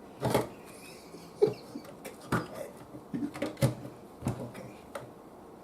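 Light knocks and clicks of radio parts being handled and fitted into a wooden cabinet, about six short separate taps spread over a few seconds.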